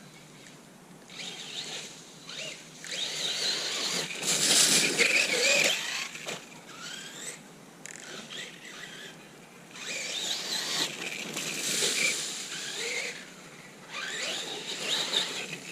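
Losi Lasernut 4S brushless RC car's motor and drivetrain, fitted with a hardened metal center spur gear, whining as it is driven in three surges, the pitch rising and falling with the throttle. Loudest about four to six seconds in, again around ten to thirteen seconds and near the end.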